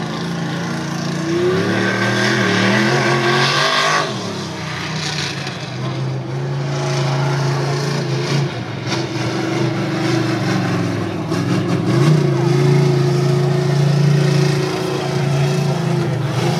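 Lifted mud truck's engine revving under load. The pitch climbs over the first few seconds, drops sharply about four seconds in, then holds fairly steady at high revs.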